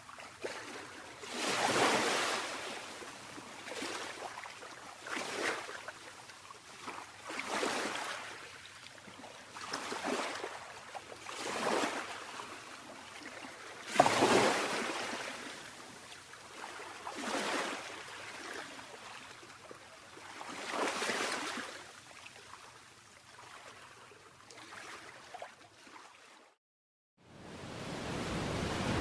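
Small sea waves lapping, one wash every two or three seconds, each swelling and fading. Near the end the sound cuts out for a moment and a louder, steadier surf begins.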